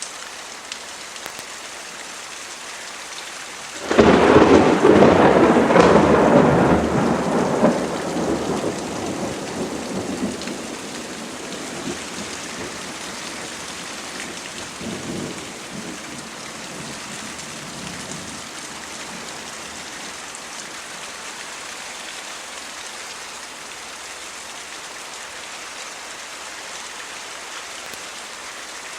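Steady rain falling, with a sudden loud thunderclap about four seconds in that rolls on and fades away over the next several seconds, and a smaller rumble of thunder later on.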